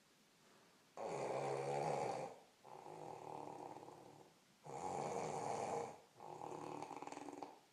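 A woman snoring loudly in her sleep: two snoring breaths, each a loud rasping snore followed by a softer one.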